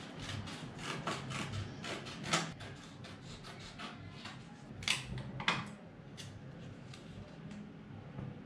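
Small scissors snipping paper in quick, irregular cuts, with paper rustling; a few louder snips near the middle. A steady low hum runs underneath.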